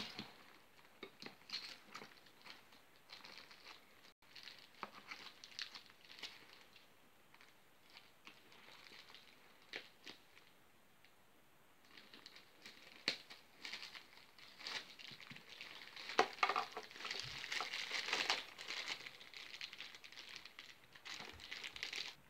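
Plastic wrapping crinkling and rustling as it is handled and cut away from a new toy, in irregular bursts with scattered clicks, busiest in the last few seconds.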